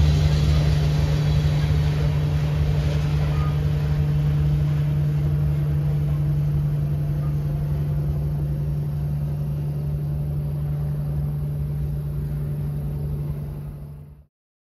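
Covered hopper cars of a freight train rolling past on the rails, a steady low rumble of wheels on track that slowly fades as the end of the train moves away, then cuts out quickly near the end.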